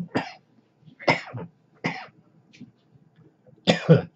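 A man coughing repeatedly after a large hit of e-cigarette vapour: several short, harsh coughs about a second apart, the loudest pair near the end.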